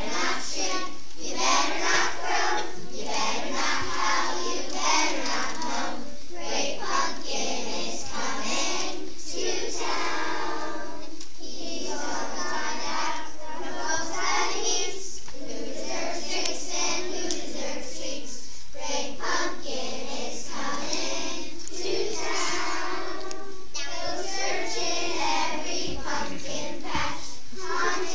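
A class of young children singing together in unison.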